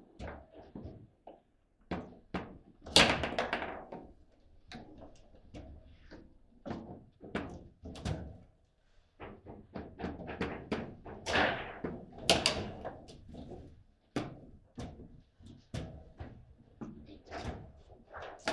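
Table football game in play: irregular clacks and knocks as the ball is struck by the rod figures and bounces off the table, with a few louder bangs.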